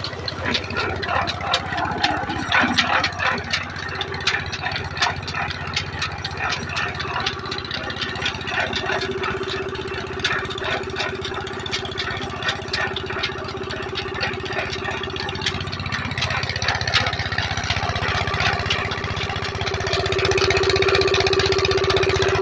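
Stationary engine running steadily, driving a water pump through a flat belt and a geared iron wheel, with a rapid, even knocking beat and water gushing. The steady hum grows louder near the end.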